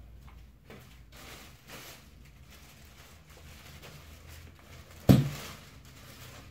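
Clear plastic packaging bag rustling and crinkling as a hoodie is handled and pulled out of it. A single loud thump comes about five seconds in.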